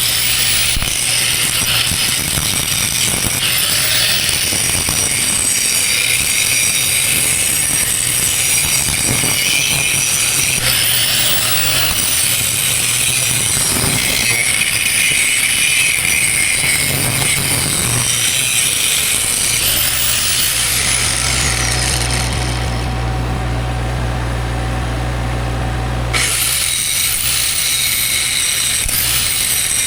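Angle grinder grinding out cracks in the steel of a processor boom, running continuously with a few rises and falls in pitch under load. It stops for a few seconds just past the middle, leaving a low steady hum, then starts again.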